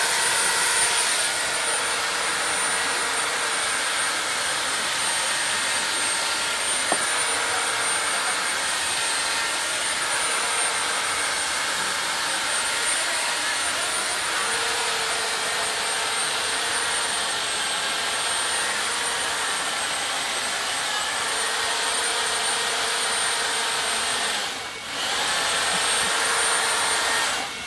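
Electric chainsaw cutting into a block of ice, running steadily with a high whine. It drops out briefly about three seconds before the end, then runs on and stops.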